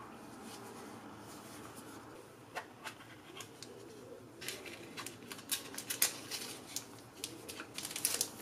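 Handling and opening a small cardboard box of Japanese ink sticks: the inner tray slides out of its card sleeve and packaging rustles, with scattered light clicks and taps that start about two and a half seconds in and come thicker over the last few seconds.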